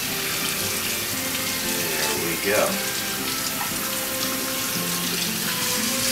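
Kitchen faucet running steadily onto a head of cabbage, the water splashing off the leaves into a stainless steel sink.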